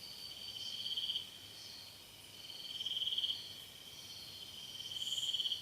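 Rainforest insect chorus: a steady high-pitched drone with three rapid trills that swell in loudness and cut off sharply, about two seconds apart.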